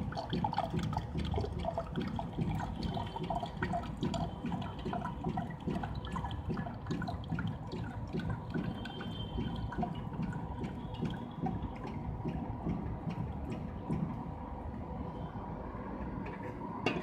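Smoothie vending machine running its mixing cycle on a mango smoothie: continuous gurgling, bubbling liquid with a faint steady hum underneath.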